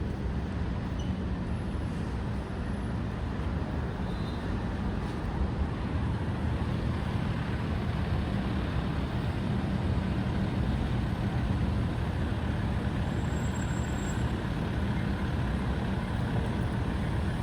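Steady low rumble of road traffic, mostly engine noise, with no distinct events standing out.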